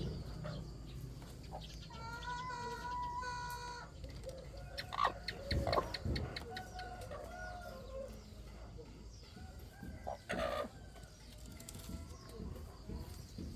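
Chickens clucking and calling, with a rooster crowing, a long held call, about two seconds in.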